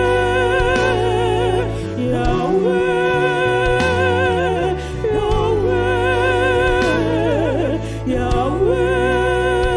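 Gospel worship music: a melody line with heavy vibrato over sustained low bass notes, dipping briefly between phrases.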